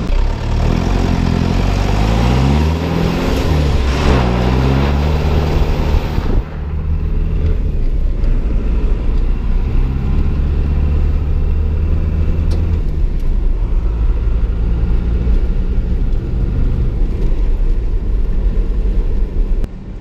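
Cummins 4BT four-cylinder turbodiesel in a Ford Ranger pickup, heard from inside the cab. For the first few seconds it accelerates hard, its pitch climbing and falling back twice as it shifts up. After a sudden break about six seconds in, it runs steadily at cruising speed.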